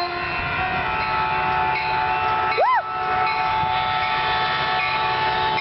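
Caltrain locomotive horn sounding a long, steady chord of several notes over the rumble of the arriving train. A person shouts "woo" once, partway through.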